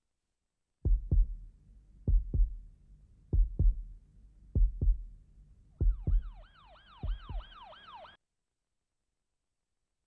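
Heartbeat sound effect: six low double thumps, a little over a second apart. About six seconds in, a siren joins, yelping rapidly up and down, and both cut off together about eight seconds in.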